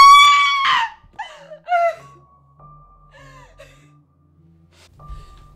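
A woman's loud, high-pitched scream lasting about a second, then two short cries falling in pitch. After them comes soft background music with a held high note over low notes.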